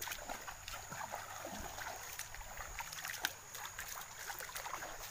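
Footsteps wading through a shallow, stony stream, with irregular splashes and water trickling.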